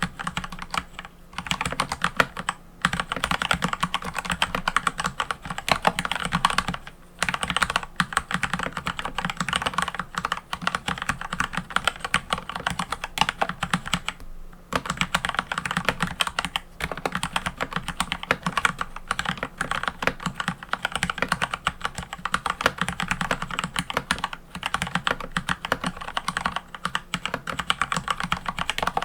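Mechanical keyboard being typed on quickly and steadily: a dense run of key clacks, with short pauses about seven and fourteen seconds in.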